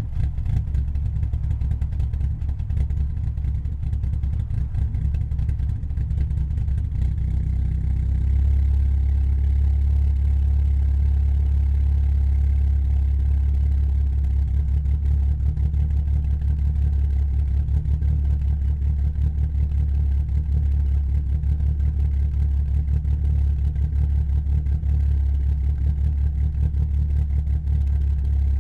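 Car engine idling through a new aftermarket exhaust, a steady low rumble. The idle gets slightly louder about eight seconds in.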